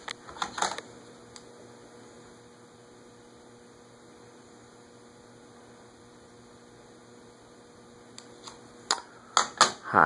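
Steady low electrical mains hum, with a few sharp clicks about half a second in and a cluster of loud clicks and knocks near the end.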